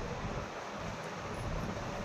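Cotton clothes rustling as they are shaken out and folded by hand, over a steady rushing background noise.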